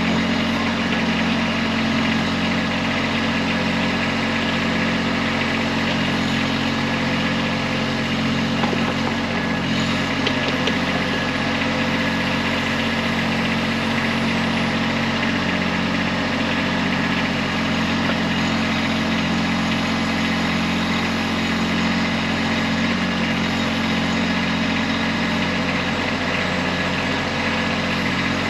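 Kubota B2301 compact tractor's three-cylinder diesel engine running steadily while powering the BH70 backhoe, with an even throb about once a second.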